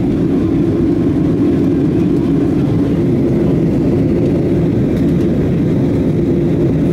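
Steady cabin noise of a Boeing 737-800 in flight: its CFM56-7B engines and the airflow along the fuselage make an even low rumble.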